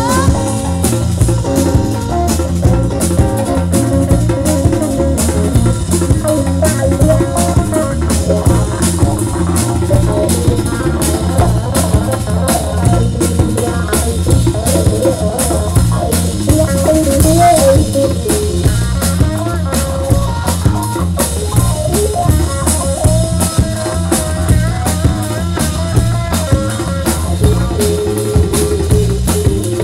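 Live rock band playing an instrumental stretch: a drum kit keeps a steady, busy beat under electric guitar and bass guitar.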